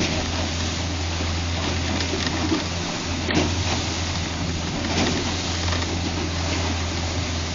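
A boat's motor running steadily with a low hum under a constant rush of wind and water.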